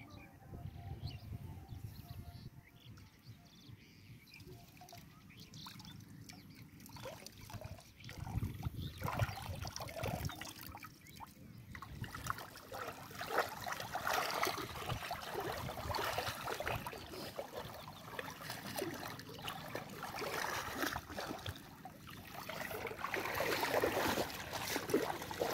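Water trickling and sloshing as a wet cast net is gathered and hauled out of shallow water, streaming off the mesh. It is faint at first and becomes busier and more splashy from about a third of the way in.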